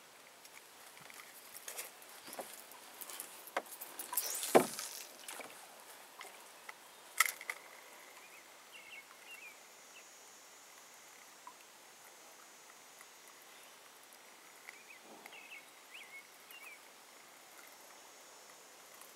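Scattered knocks and clicks from handling fishing gear in a small boat, loudest about four and a half seconds in, with one sharp click a couple of seconds later. Faint bird chirps come in a few times afterward.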